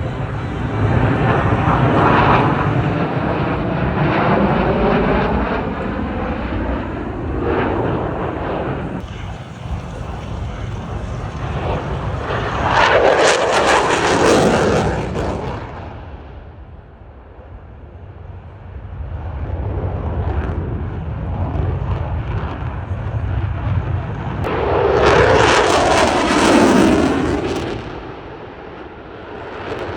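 Blue Angels jet aircraft flying overhead: a continuous jet roar with a swirling, phasing sweep in its tone over the first several seconds. Then two loud passes, about halfway and near the end, each swelling up and fading over a couple of seconds.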